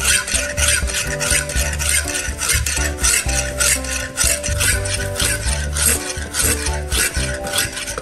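A wet sharpening stone scraping back and forth along the steel edge of a kitchen knife, in quick, even strokes about three a second. Background music plays under it.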